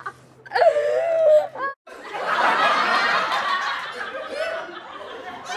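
People laughing: first one high, wavering laugh, then after a brief break several voices laughing together, fading toward the end.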